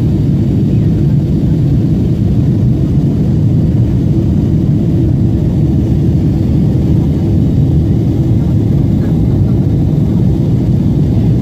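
Steady low rumble inside the cabin of a Boeing 777-300 airliner in its climb after takeoff: engine and airflow noise, even in loudness throughout.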